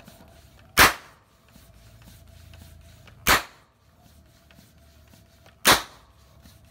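Homemade spark-ignited PVC toy gun going off three times, a sharp pop about every two and a half seconds, firing each time without a misfire.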